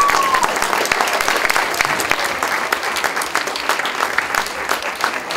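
Audience applauding, dense steady clapping.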